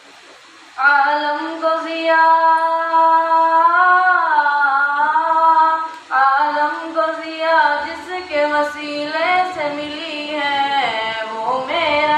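A single voice chanting unaccompanied Islamic devotional verse (naat or Quran-style recitation) into a microphone. It sings in long held notes with slow bends and ornaments, starting just under a second in, with a short break about six seconds in.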